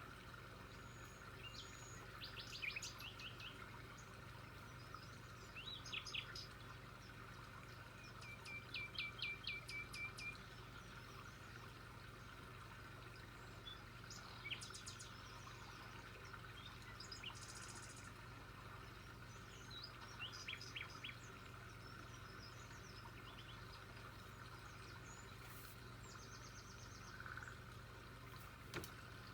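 Birds chirping in short bouts of quick repeated high notes, about half a dozen times, the longest a trill of some two seconds, over a faint steady low hum.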